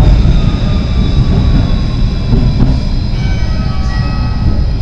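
Tram rolling on its rails with a steady low rumble, overlaid by a high electric whine from its traction equipment, one tone of which falls in pitch as the tram slows toward a stop.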